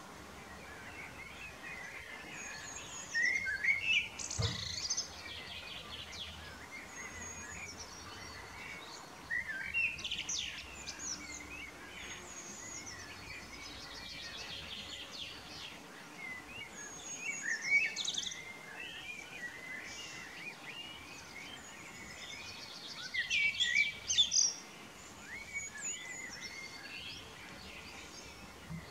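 Male common blackbird singing: four warbling song phrases several seconds apart, each running up into high twittering at its end, with faint chirps between the phrases.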